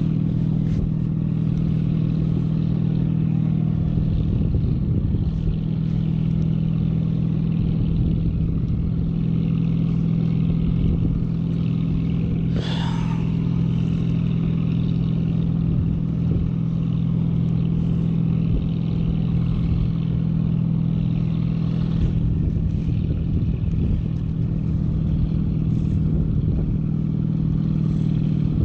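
Steady wind buffeting the microphone of a camera riding with a parasail high above the sea, over a constant low drone. A brief wavering higher sound comes about halfway through.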